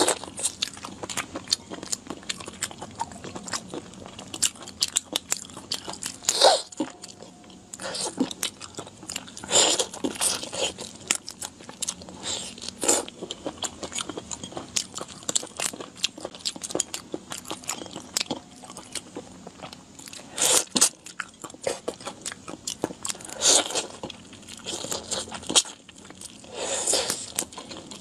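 Close-up eating sounds of whole shell-on prawns: shells crunching and crackling between the teeth, with wet chewing and louder crunches every few seconds.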